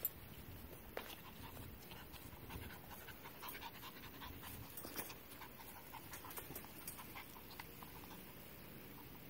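Pomeranian puppy panting softly, with scattered light clicks and taps, a sharper click right at the start.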